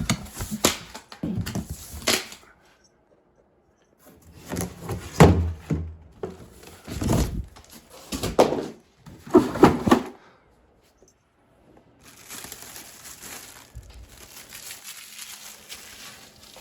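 Cardboard box and packaging being handled and opened: a string of sharp knocks, thunks, tearing and crinkling, heaviest between about four and ten seconds in, then a faint steady rustle.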